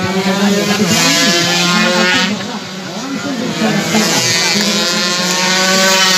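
Two-stroke 125cc underbone race motorcycles running at high revs along the circuit, their engine pitch rising and falling as they pass. The passes are loudest about a second in and again from about four seconds in.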